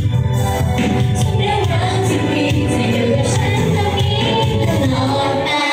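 Female idol group singing together into handheld microphones over amplified pop backing music. The backing music's bass drops out right at the end, leaving the voices.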